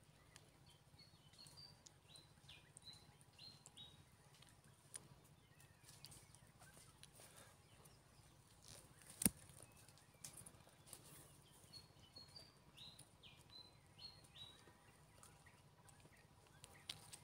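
Quiet woodland ambience with a songbird singing the same short phrase of high chirping notes twice, about a second in and again about twelve seconds in. A single sharp click sounds about nine seconds in, over a faint low hum.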